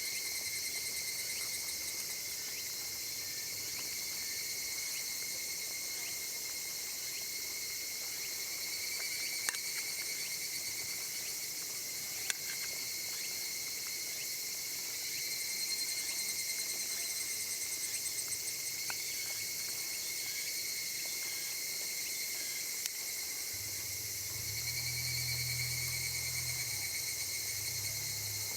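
Steady chorus of summer insects buzzing, with a few faint clicks and a low hum rising for a few seconds near the end.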